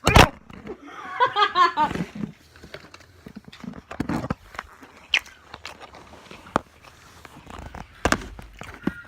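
Loud knocks and bumps of something being handled near the microphone, with a short wavering wordless vocal sound about a second in and scattered light clicks and rustles.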